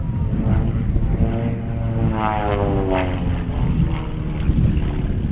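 Propeller engine of an aerobatic airplane running overhead, its note sweeping up and then down in pitch about halfway through, over a steady low rumble.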